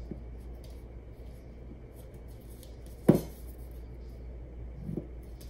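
Cleaver chopping down through a stack of corn tortillas onto a cutting board: one sharp knock about three seconds in and a softer one near the end.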